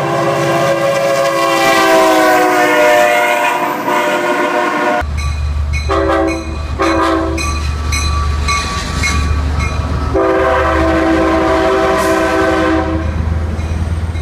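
NCDOT F59PH diesel locomotive on an Amtrak Piedmont train sounding its multi-chime air horn: one long chord that sags slightly in pitch, then, under the heavy rumble of the passing locomotive, two short blasts and a second long blast. Rapid clicking of wheels over rail joints runs between the blasts.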